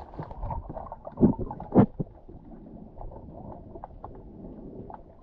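Muffled underwater sound picked up by a camera held below the surface: two loud dull thumps about a second in, then a low rumble of moving water with faint scattered clicks.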